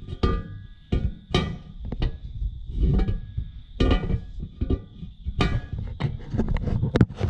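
Irregular metallic knocks and clanks as a turbo exhaust pipe is worked by hand onto its V-band flange, over guitar music.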